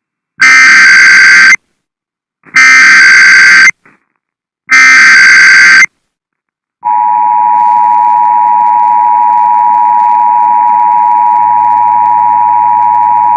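Emergency Alert System signal for a National Weather Service severe thunderstorm warning. Three loud one-second bursts of buzzing data tones (the SAME header) come with short gaps between them. About seven seconds in, a long steady attention tone starts and carries on.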